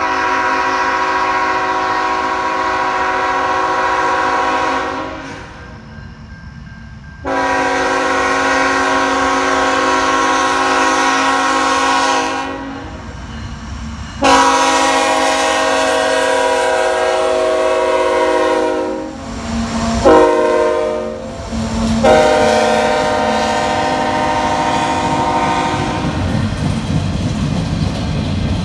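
Multi-chime air horn of the CN lead locomotive blowing the grade-crossing signal: three long blasts, a short one, then a final long one. After that comes the steady low rumble of the locomotives and freight cars passing.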